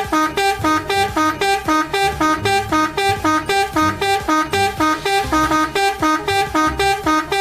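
Background music: a fast, evenly paced plucked melody of about four notes a second.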